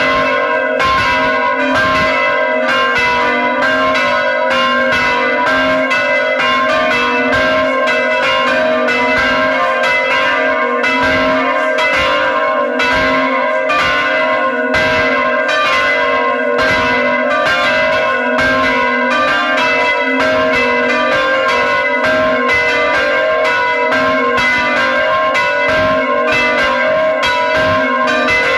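Church bells of several pitches rung by pulling their ropes, struck over and over in a fast, continuous peal, with each bell's tone ringing on over the next strokes.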